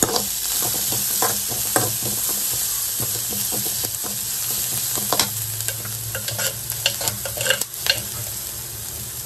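Chopped onion and crushed garlic sizzling in hot oil in a metal kadai while a steel slotted spoon stirs them, scraping and clinking against the pan in quick, irregular strokes.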